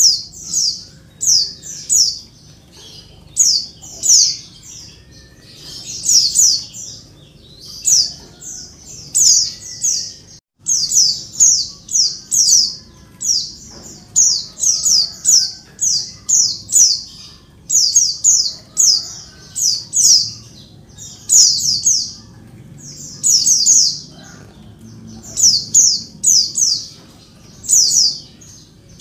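White-eyes (pleci) calling noisily in quick clusters of two to four high, falling chirps, repeated over and over; the uploader presents it as a female calling for a male. The sound drops out briefly about ten seconds in.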